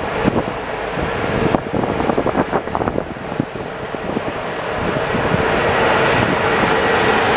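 CFR class 40 electric locomotive starting away with its train: a steady hum from the locomotive with a scatter of clicks and knocks in the first few seconds, growing louder from about five seconds in as it draws past. Wind buffets the microphone.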